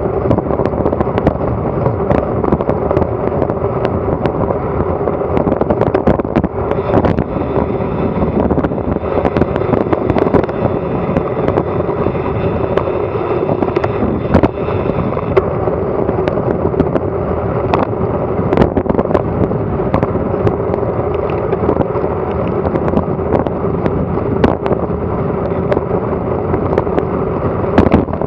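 Wind rushing over an action camera's microphone on a fast bicycle descent: a loud, steady rushing noise with frequent short clicks and knocks.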